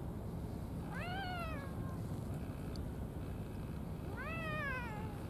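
A cat meowing twice, about three seconds apart; each meow is about a second long and rises then falls in pitch.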